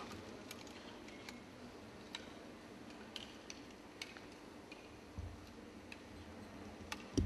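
Faint, sharp clicks at irregular intervals, about ten of them: 10 m air rifles being fired across a quiet shooting range during a competition series. A dull low thump comes about five seconds in and another near the end.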